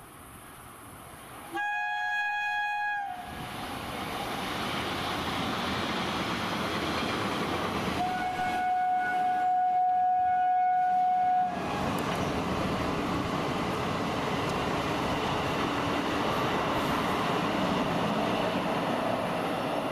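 Passing Indian Railways local passenger train: a short horn blast about two seconds in and a longer, steady horn blast about eight seconds in, each lasting a few seconds. Under them the running noise of the wheels on the rails builds up and then continues steadily.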